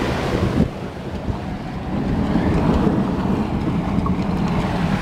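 Wind rumbling on the microphone over water rushing and splashing past the hull of a small sailing yacht under sail in choppy water. The low rumble grows heavier about two seconds in.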